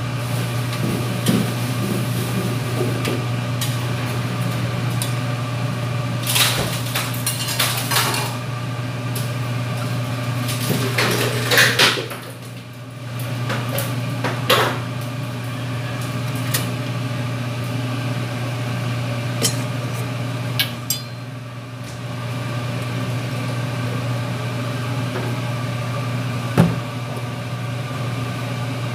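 Cooking utensils clattering, knocking and scraping against metal pots and a wok while noodles are cooked, scattered over a steady low hum.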